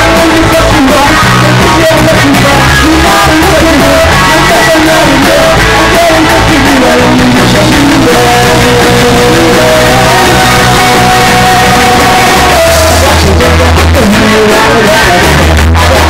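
Loud live rock band playing, with guitar and a male singer singing into the microphone.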